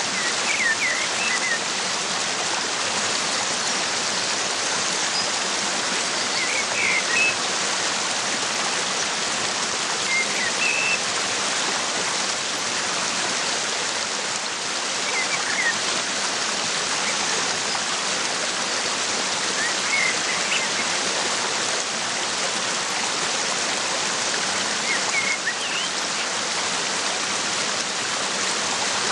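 Waterfall's steady rush of falling water, with a bird chirping briefly every few seconds over it.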